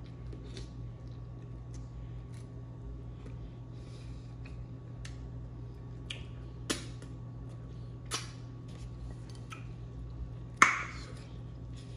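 Scattered small clicks and taps from long acrylic fingernails and eating, over a steady low hum. Sharper clicks stand out about seven and eight seconds in. Just before the end there is a louder click with a short rustle as a plastic ketchup squeeze bottle is picked up.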